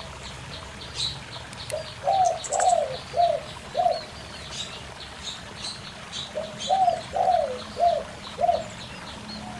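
Doves cooing in two phrases of about five short, falling coo notes, one starting about two seconds in and one about six seconds in. High, quick chirps of small birds run throughout over the steady rush of a small rocky stream.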